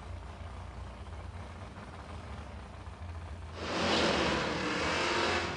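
Low, steady rumble of a V8 drag car's engine far off down the strip. About three and a half seconds in, a much louder rush of race-car engine noise comes in for about two seconds and then drops away.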